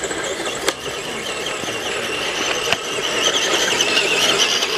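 Electric motor and gear train of a scale RC crawler truck whining as it climbs, the pitch wavering with the throttle and getting louder over the last couple of seconds. Two short sharp clicks come under a second in and just under three seconds in.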